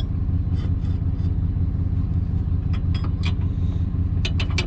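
Vehicle engine idling with a steady low drone, with several short light knocks and clicks scattered through it.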